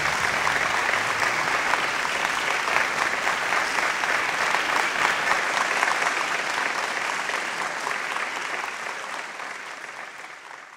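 A crowd applauding, many hands clapping together, fading out over the last few seconds.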